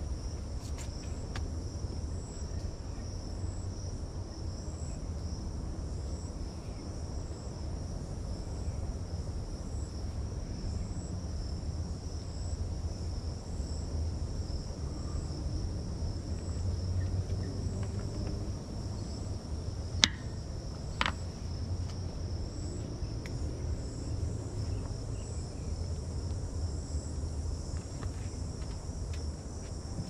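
Chorus of bush insects: one steady high-pitched trill and a second, higher one pulsing in a regular beat. A low rumble runs underneath, and two sharp clicks come about two-thirds of the way through.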